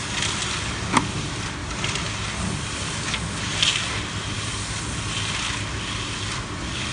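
A tilting-drum concrete mixer with a 1 hp Mitsubishi motor is running, its drum turning a load of sand that hisses and scrapes as it tumbles, over a steady motor hum. There is a sharp click about a second in.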